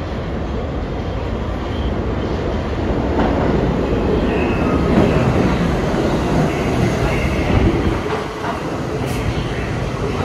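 New York City subway train running alongside the platform: a loud, steady rumble of wheels on rail that swells toward the middle and eases off near the end, with brief high wheel squeals partway through.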